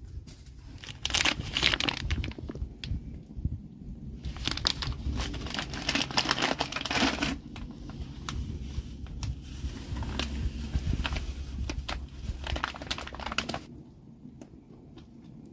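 Foil coffee bag crinkling and rustling in several bursts as it is handled and ground coffee is poured from it into a metal pot.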